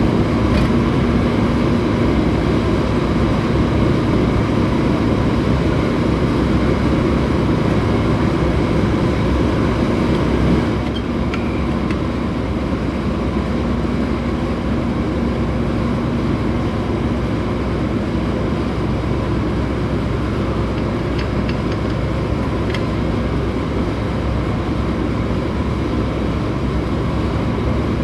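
Steady low mechanical drone with a faint hum, easing off slightly about ten seconds in, with a few faint clicks.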